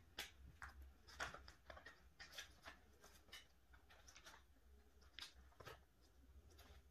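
Faint, irregular crinkling and soft clicks of plastic pocket-page binder sleeves as a photocard is slid into a pocket and the sleeve page is handled.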